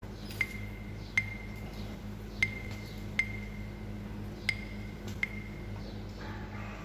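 Sharp clinks, each with a short ringing tone, coming in pairs: two clinks about a second apart, three pairs in all, evenly spaced. A low steady hum runs underneath.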